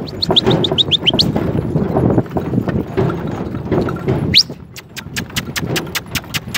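A donkey team pulling a cart along a track: a low rattling rumble, then from about four and a half seconds in an even clip-clop of the trotting team at about four beats a second. A quick run of high chirps comes in the first second, and a single rising chirp just before the clip-clop starts.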